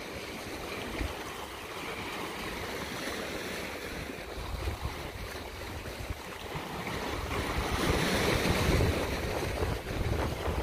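Sea waves washing against shoreline rocks, with wind buffeting the microphone. The rush swells louder for a couple of seconds about three quarters of the way through.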